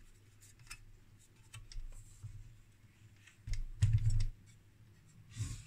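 Handling noise from a metal instrument chassis being turned over on a workbench: scattered light clicks and taps, with a few duller bumps about three and a half to four seconds in and again near the end.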